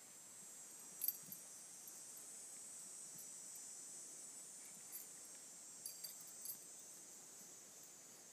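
Faint, steady high-pitched insect chorus, with a few brief clicks over it, the sharpest about a second in.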